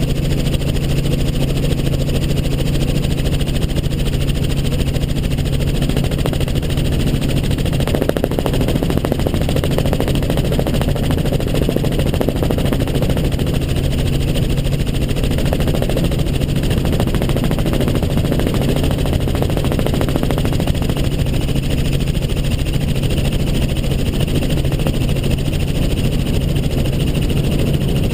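Helicopter in flight: steady engine and rotor noise, a low drone with rapid rhythmic blade chop.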